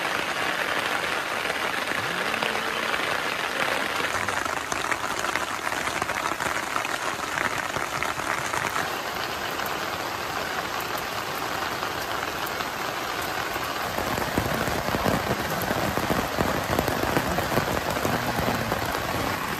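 Heavy tropical rain falling steadily, a dense hiss of drops that grows louder and heavier about two thirds of the way in.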